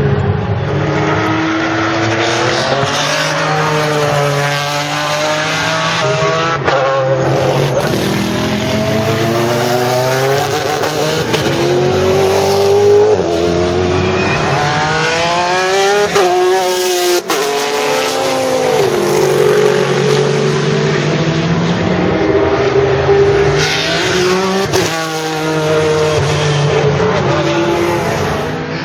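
Pagani Zonda C12 GR's Mercedes-AMG V12 racing engine at full throttle on track, its pitch climbing steeply through each gear, then falling back on lift-off and downshifts, again and again.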